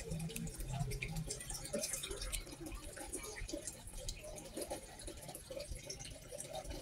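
Faint rustling of plant leaves and scattered light clicks as a hand searches a flower pot and picks up a chicken egg.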